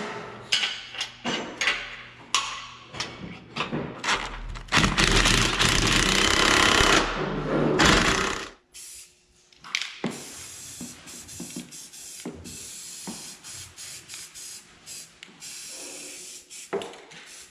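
Cordless impact wrench hammering a bolt, first in a string of short bursts, then in one continuous run of about three seconds that stops abruptly about 8 seconds in. Lighter scattered clicks and knocks follow.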